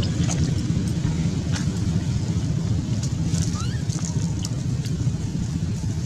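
Steady low rumble with scattered faint clicks and a few brief high chirps, one of them a quick rising squeak about three and a half seconds in.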